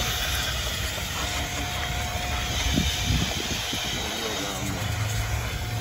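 Small handheld blower running, a steady rush of air with a thin whine.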